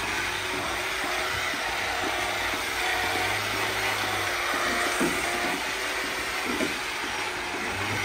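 Milking parlour machinery running: a steady mechanical drone and hiss, with a low hum that cuts in and out. Two brief knocks come past the middle.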